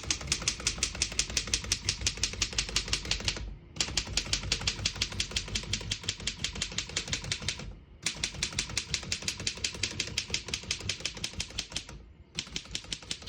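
Rapid typing on a 1914 Royal No. 5 desktop typewriter: fast, even key and typebar strikes, about seven a second, in three long runs with brief pauses between them.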